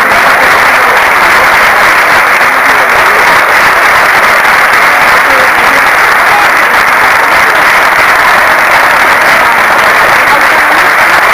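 Audience applauding steadily: many people clapping at once, without a break.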